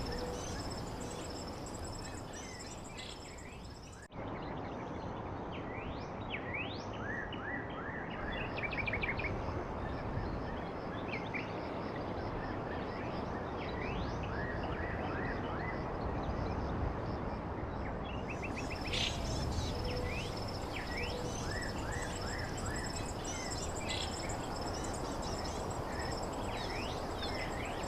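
Outdoor natural ambience: many short bird chirps over a steady high insect trill and a noisy background, with an abrupt cut about four seconds in.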